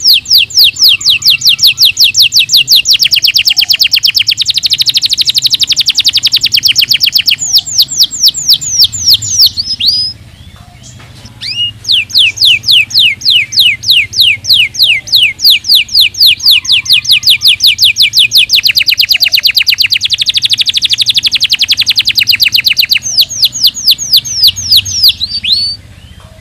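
Domestic canary singing two long song phrases of rapid repeated high notes, with runs that speed up into fast trills and slow down again, and a short pause between the phrases about ten seconds in.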